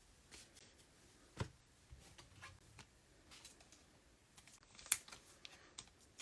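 Quiet handling of trading cards and packs: soft rustles and light taps, two of them sharper, about a second and a half in and near five seconds.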